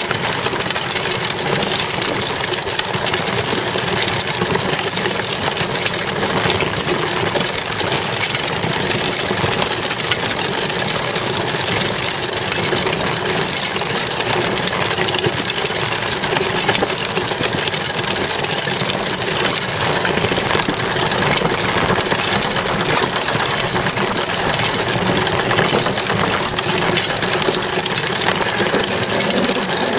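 A child's bicycle ridden fast on asphalt: loud, steady rolling noise of the small tyre on the road, with rattling from the bike.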